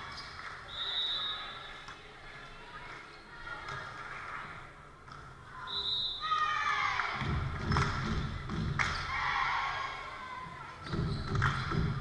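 Volleyball rally in a school gym: echoing thuds of the ball being struck and bouncing, under players calling out and cheering, which grow louder in the second half.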